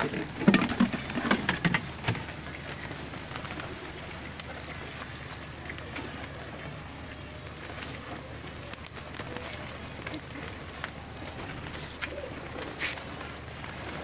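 A crowded flock of domestic plosur pigeons feeding on scattered grain: a flurry of wing flaps and sharp clicks in the first two seconds, then a steady patter of pecking and shuffling with some cooing.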